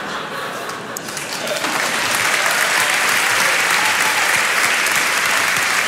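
Audience applause, softer at first, swelling about two seconds in and then holding steady.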